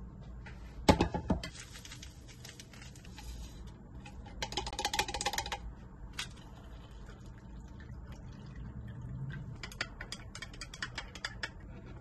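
Kitchen-counter handling sounds: a sharp knock about a second in, a rattling shake of dried herbs onto the omurice, then a run of light clicks and taps near the end.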